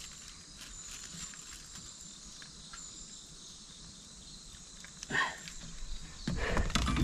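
Insects shrilling steadily in the waterside trees. About five seconds in there is a short louder sound, then rumbling and clicking handling noise near the end.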